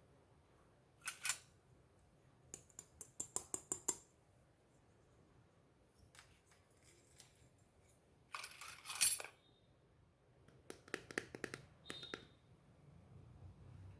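Pieces of a miniature toy kitchen set being handled: light clicks and a quick run of ticking, a louder scrape or rustle about two-thirds of the way in, then more clicks ending in a short clink.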